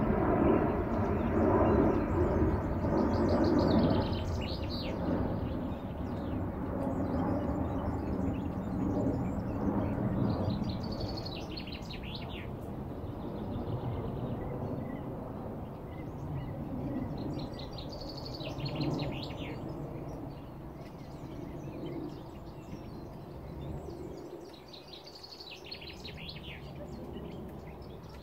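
A low engine drone with a steady pitch, loudest at the start and fading away. Over it a songbird sings a short chirping phrase about every seven seconds.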